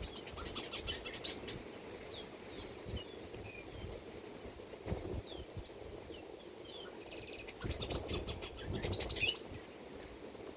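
A flock of small birds chirping and twittering: quick, dense runs of high chirps at the start and again about eight seconds in, with scattered short down-slurred chirps in between.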